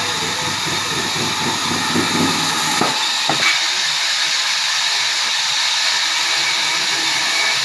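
Sawmill machinery running: a loud, steady hiss-like noise, with two sharp knocks about three seconds in.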